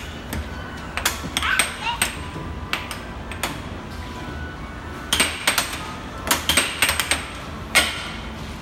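Plastic air hockey puck clacking against the mallets and table rails: sharp knocks at irregular intervals, several in quick runs.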